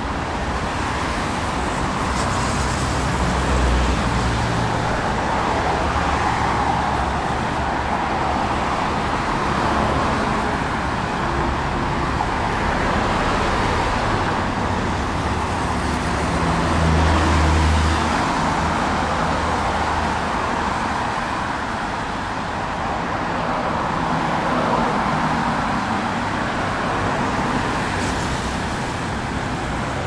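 Road traffic on a multi-lane road going by steadily, swelling as vehicles pass, loudest about midway when a motorcycle goes past.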